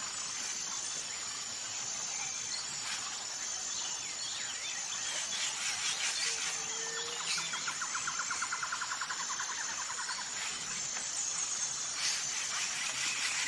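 Forest ambience of insects and birds: a steady high-pitched insect drone with scattered bird chirps. A fast pulsing trill runs for a couple of seconds around the middle, and a short low whistled note sounds once just before it.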